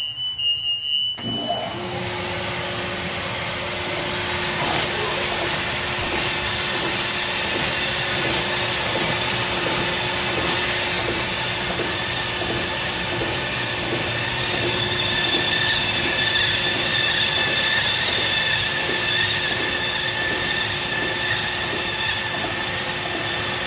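Paper folding machine running with an inline rotary die cutter perforating the sheets: a steady machine hum and whine with a regular pulse, about one and a half beats a second. It starts up about a second in.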